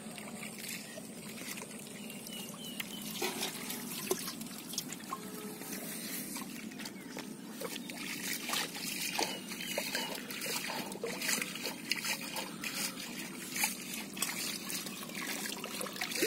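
Shallow muddy water splashing and trickling as a steel bowl is dipped into a ditch and lifted out, water dribbling off its rim, with many small splashes and clicks.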